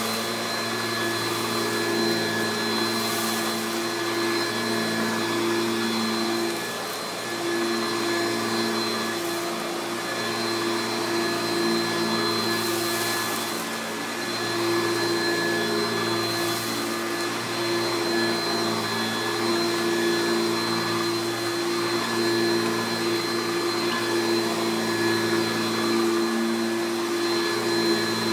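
1995 Hoover Turbopower 3 U2876 upright vacuum cleaner running, a steady motor whine with airflow noise, its level dipping slightly now and then.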